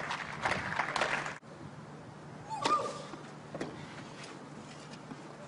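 Crowd clapping after a point, cut off suddenly about a second and a half in. Then comes a tennis rally on clay: sharp racket strikes on the ball about a second apart, the first with a short grunt from the player.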